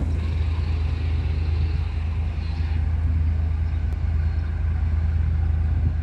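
Diesel freight locomotive engine running with a steady low rumble.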